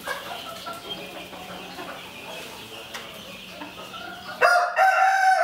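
Faint short calls from fowl, then about four and a half seconds in a male fowl starts a loud, long crowing call, still going at the end.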